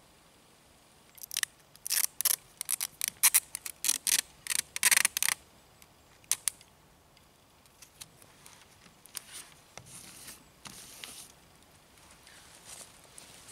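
Adhesive tape pulled off the roll in a quick run of short, sharp rips, then quieter rustling and rubbing from about halfway as the tape and paper are pressed down on the board.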